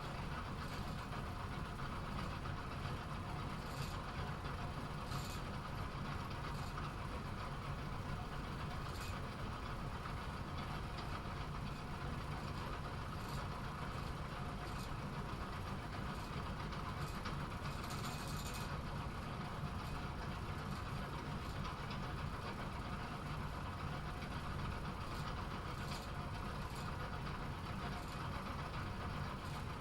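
Bowling alley pinsetter machinery running with a steady mechanical hum, with faint scattered clicks and a brief hiss about two-thirds of the way through.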